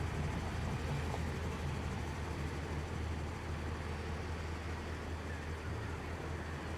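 A motor vehicle's engine running steadily with a low, even hum and no siren.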